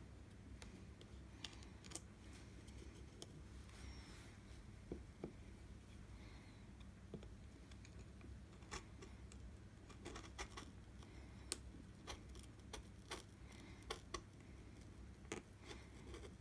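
A half-inch bench chisel pushed by hand into wood, paring out a recess: faint, irregular crisp clicks and scrapes as the fibres are cut and chips break away, over a low steady hum.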